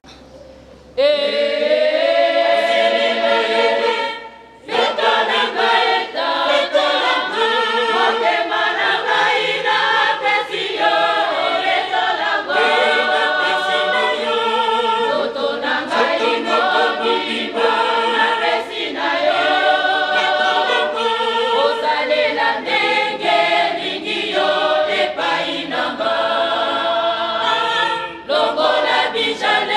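Kimbanguist church choir of mixed men's and women's voices singing a hymn together. The singing starts about a second in and breaks off briefly around four seconds in before going on.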